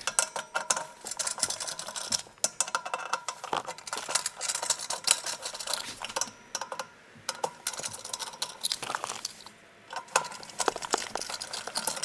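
Screwdriver turning out the hardware mounting screws inside a metal snare drum shell: a steady stream of small metallic clicks, ticks and scrapes, with a brief lull near the end.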